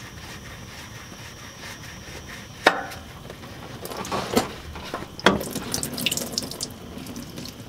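Hot engine oil running and dripping into a drain pan as the oil filter is unscrewed from the engine, with spattering drips near the end. Two sharp knocks of metal, about three and five seconds in.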